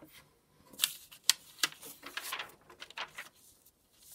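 Sheets of paper being handled and slid across a desk: short rustles with several sharp taps and clicks, and a softer sliding rustle near the end.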